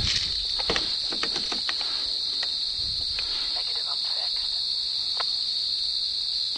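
A chorus of crickets trilling as one continuous high-pitched hum, with a few scattered soft clicks and rustles over it.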